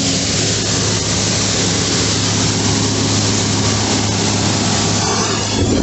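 Case IH 2399 combine harvester running close by while its unloading auger pours soybeans into a truck trailer: a steady engine hum under a loud, even hiss of falling grain.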